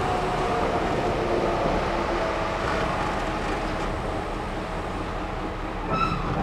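Steady running rumble of a moving diesel locomotive, heard from its walkway, with faint wavering tones in the noise. A brief high-pitched tone sounds near the end.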